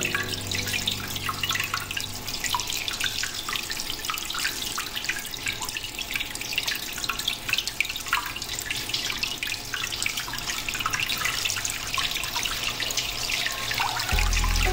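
A thin stream of running water splashing and dripping over a raw brain held in the hand as it is rinsed, with many small patters on the wet surface.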